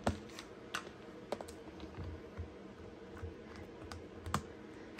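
A few faint, scattered taps and clicks: a StazOn ink pad dabbed onto a clear stamp, then the Stamparatus stamping platform's plastic plate closed and pressed down by hand. The clicks come mostly in the first second, with one sharper click near the end.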